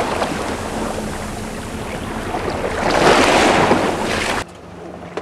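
Water rushing and splashing along the hull of a fast-moving motorboat, with wind buffeting the microphone and a steady low engine hum underneath. The rush swells louder about three seconds in, then drops suddenly to a much quieter hiss near the end.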